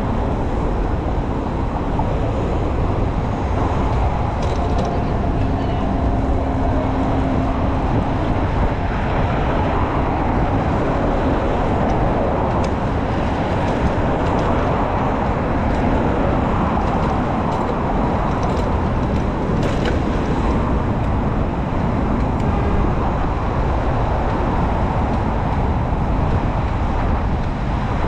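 Steady city road-traffic noise mixed with a low wind rumble, heard from a moving bicycle in a bike lane beside a busy road.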